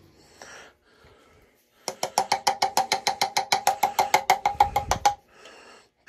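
Rapid, even metallic clicking, about ten clicks a second for some three seconds, starting about two seconds in, with a ringing tone under it. It fits a tool being worked against the boiler fittings as the drain valve goes on.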